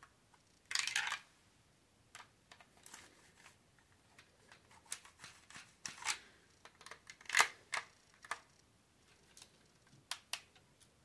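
Plastic Lego parts of a brick-built flintlock pistol clicking and scraping as it is loaded: a short rasping scrape about a second in, then a string of small clicks and rubs as the ramrod is worked in the barrel. Two sharp clicks near the end as the hammer is pulled back.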